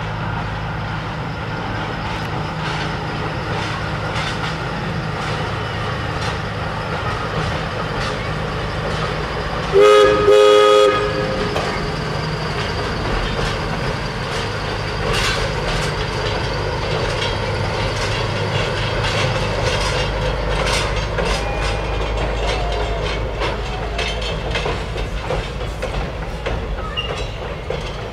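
A 1939 Davenport 25-ton side-rod diesel-mechanical locomotive, repowered with a Caterpillar 3406 diesel, runs steadily as it pulls a short passenger train across a steel bridge. Its horn sounds briefly, about a second, around ten seconds in, the loudest sound here. In the second half the wheels click and clatter over the rail joints as the cars roll across.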